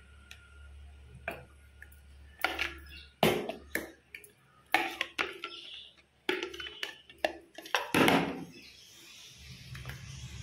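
Scattered knocks and clinks of kitchen utensils against a clay cooking pot and dishes, over a low steady hum.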